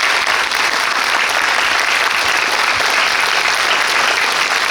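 Cinema audience applauding, a dense steady round of clapping.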